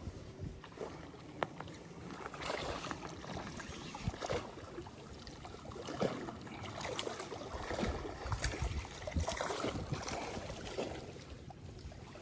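Lake water splashing and lapping in irregular surges.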